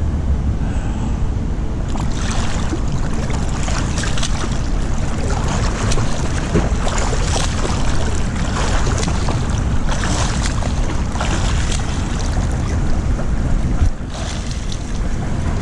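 A swimmer doing slow catch-up front crawl: hands slapping into the water, arms splashing and feet kicking at the surface in an irregular patter, over a steady low rumble of water and wind on the microphone. The splashing eases near the end as he stands up.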